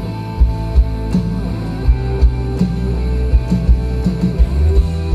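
Live band playing an instrumental stretch through the stage PA: guitar over bass and a drum kit beat, with no singing.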